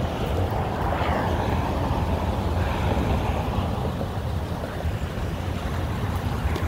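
Kick scooter's wheels rolling on pavement: a steady rumble with a haze of noise above it.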